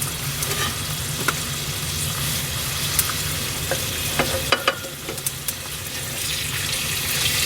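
Bacon and eggy bread frying in a pan, a steady sizzle with sharp pops and clicks here and there.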